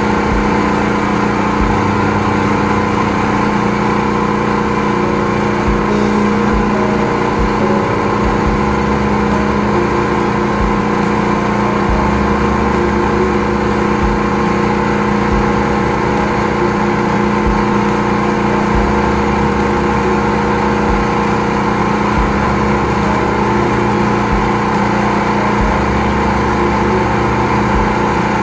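High-pressure drain jetter's engine-driven pump running steadily while its hose is fed down a clogged drain, with a low throb that comes and goes every few seconds.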